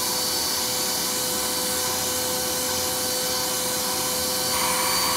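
Bissell PowerForce Compact vacuum cleaner running steadily with a high motor whine as it sucks up dirt and debris from a rug. About four and a half seconds in, a louder rushing hiss joins in.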